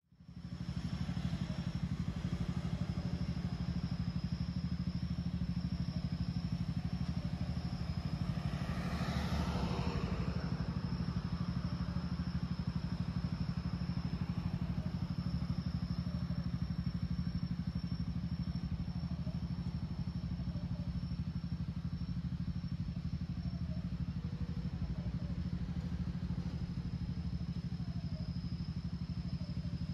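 Road traffic on a city street: a steady low rumble of engines and tyres, with one vehicle passing close about nine seconds in. A thin, steady high-pitched tone sits above the traffic.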